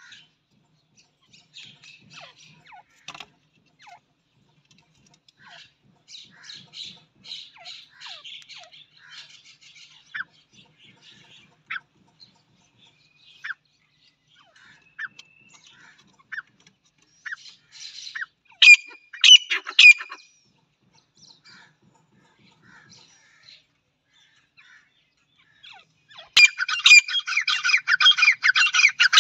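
Teetar (francolins) calling: scattered soft chirps and clicks, a loud cluster of sharp calls about two-thirds of the way in, then a fast, dense run of loud harsh calls near the end.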